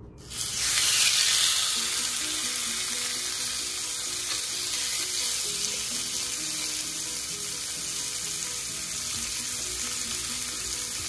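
T-bone steak sizzling as it goes down on a hot, oiled cast-iron grill pan. The sizzle starts suddenly, is loudest in the first second or two, then settles to a steady fry.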